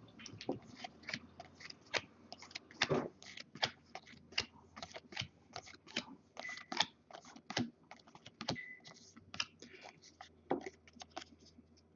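Thick Bowman Chrome trading cards flipped through by hand from a freshly opened pack, making a fast, irregular run of light clicks and snaps, about three or four a second.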